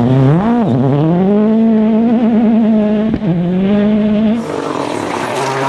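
Rally car engine revving hard, its pitch falling and rising between gear changes and wavering while held high. A brief lift-off comes about three seconds in, and the engine eases off to a lower pitch near the end.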